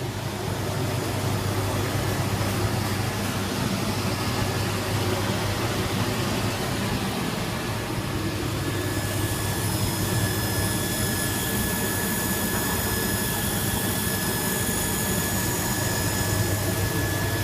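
Industrial microwave tea-drying machine running steadily: a constant low hum under an even rushing noise, with thin high-pitched whine tones joining about nine seconds in.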